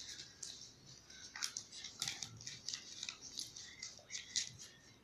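Rustling and crinkling of packaging handled by hand during an unboxing, with irregular small crackles and clicks.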